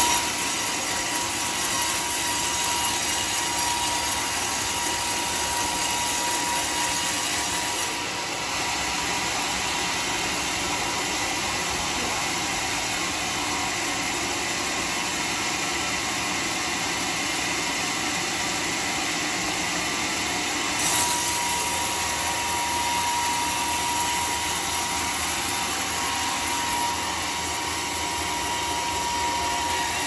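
Homemade band sawmill running with its blade cutting through a golden-teak beam: a steady, loud saw noise with a thin high tone over it, shifting slightly in level about eight and twenty-one seconds in.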